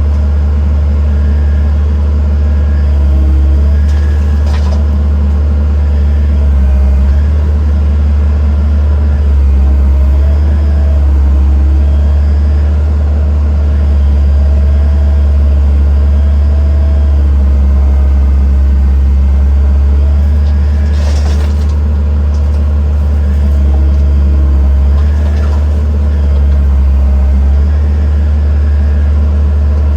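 Diesel engine of heavy machinery running steadily, with a few brief knocks.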